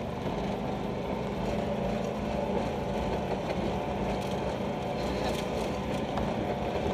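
Car engine running steadily with road noise as the car drives along a gravel track, heard from inside the cabin.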